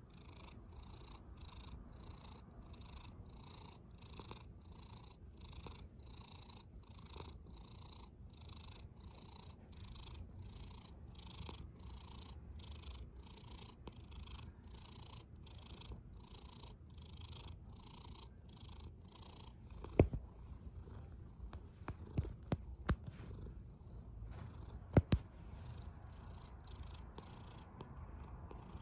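Cat snoring in its sleep, a soft rhythmic breathy sound at about one and a half pulses a second. About two-thirds of the way through, a few sharp clicks stand out louder than the snoring.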